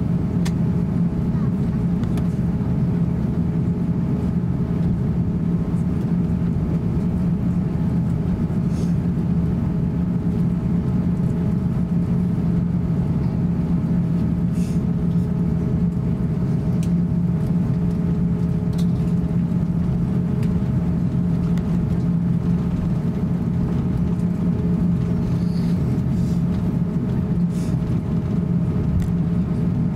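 Cabin noise of an Airbus A350-900 taxiing: a steady drone from its Rolls-Royce Trent XWB engines at taxi power, with a few faint clicks.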